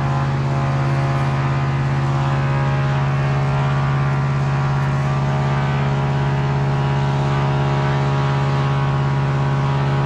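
Steady low mechanical hum with a strong low tone and many even overtones, unchanging throughout, like a motor running in the shop.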